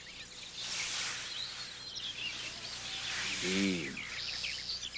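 Birds chirping and twittering over a steady background hiss: a garden nature ambience on a film soundtrack. A short low pitched sound comes in about three and a half seconds in.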